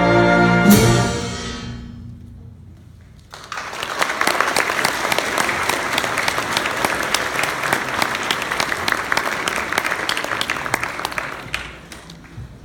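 A high school concert band's last held chord, cut off with a sharp percussion hit under a second in and dying away. After a short pause an audience applauds for about eight seconds, then the clapping fades.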